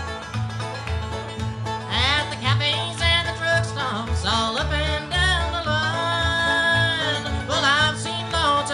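Bluegrass band playing live: banjo, upright bass and acoustic guitar, with a man's lead vocal coming in about two seconds in.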